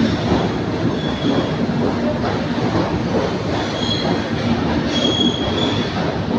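Train running on the rails with a steady rumble, and short high squeals from the wheels on the rail a few times.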